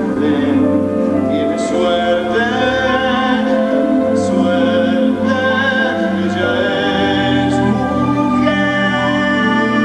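Live theatre orchestra playing a slow passage of a stage musical song, with long held, wavering tones layered over one another.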